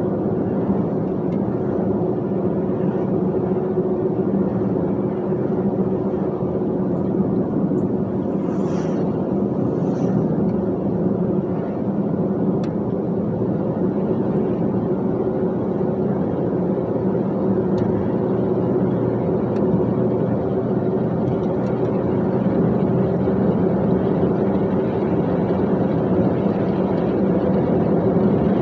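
Dump truck's engine and road noise, a steady unbroken drone while driving.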